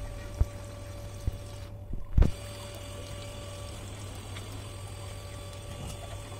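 Water poured from a mug splashing over a dog's lathered coat and onto wet concrete, over a steady low hum. A few short thumps fall in the first couple of seconds, the loudest at about two seconds in.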